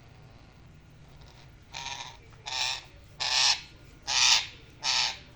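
Green pet parrot giving a series of harsh, loud squawks, five in quick succession about two-thirds of a second apart, starting almost two seconds in.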